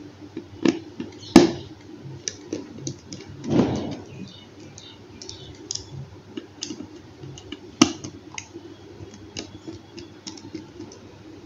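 Small precision screwdriver turning out the tiny screws of a Nokia C1-01 phone's plastic housing: light scattered clicks and ticks of the tool tip and casing. Two sharper clicks come about a second in and about two-thirds of the way through, and there is a brief scraping rustle at about three and a half seconds.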